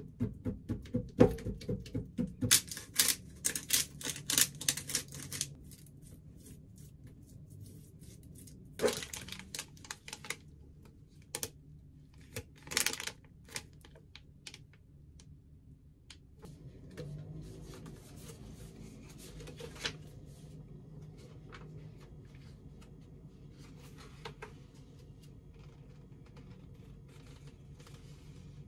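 A fork pricking raw chicken breasts on a plastic cutting board: fast, dense tapping clicks for the first five seconds or so. Then plastic zipper bags crinkle in a few short bursts. After that, only a faint low hum with a few soft clicks.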